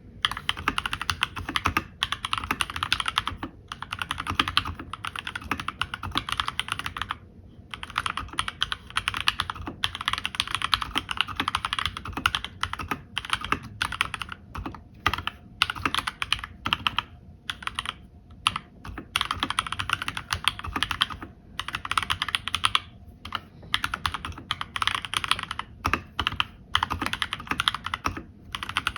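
Keychron K2 mechanical keyboard being typed on fast: a dense, rapid stream of keystrokes with brief pauses now and then.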